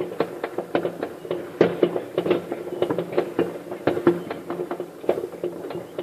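Fireworks going off all around: a dense, irregular volley of bangs and pops, several a second, over a faint low steady hum.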